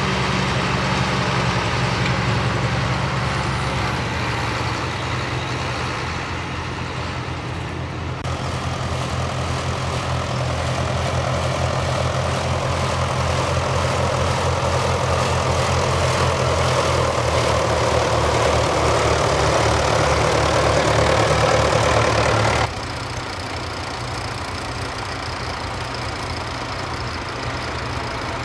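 Tractor diesel engines working under load while ploughing: a County 1884 four-wheel-drive tractor's engine, then a Fordson Major-based four-wheel-drive conversion's four-cylinder diesel, growing steadily louder, then the County again. The sound changes abruptly about eight seconds in and again about six seconds before the end.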